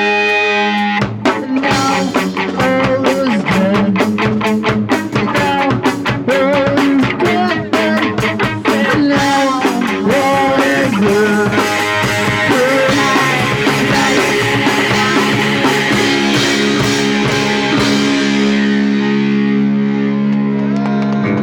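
Punk rock band playing live: distorted electric guitar over a fast-hit drum kit. The drums stop a few seconds before the end, leaving a single held guitar chord ringing out as the song finishes.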